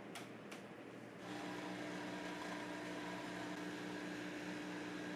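Two light clicks, then about a second in a De'Longhi espresso machine's vibration pump starts a steady hum as it pushes water through the portafilter and brews a shot.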